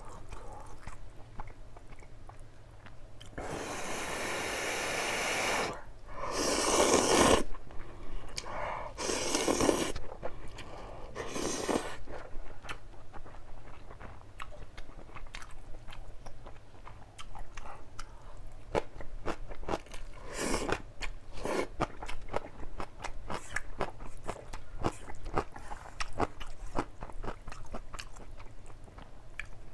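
Close-miked eating of jjajang ramyun with green onion kimchi and Spam: biting, crunching and chewing. In the first half come four louder noisy stretches, each a second or two long, and after that a dense run of short wet clicks and crackles from the chewing.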